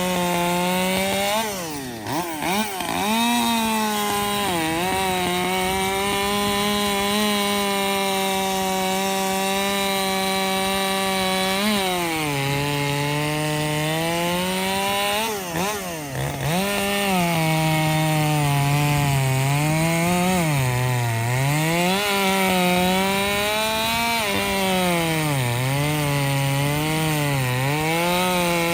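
Two-stroke gasoline chainsaw running hard through a cut, its engine note held high and steady, then dipping briefly twice. In the second half the pitch sits lower and rises and falls repeatedly as the chain loads up and frees in the wood.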